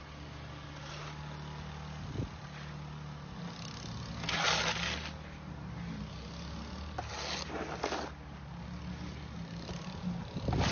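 Car engine running steadily, with a few short scraping sounds about four and a half, seven and eight seconds in.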